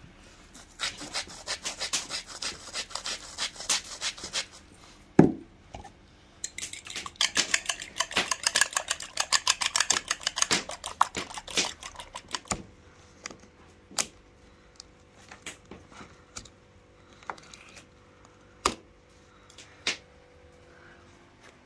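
A metal fork whisking raw eggs in a glazed ceramic bowl: rapid clicking of the fork against the pottery in two long runs, with one louder knock in the short pause between them. After that, only a few scattered light clicks.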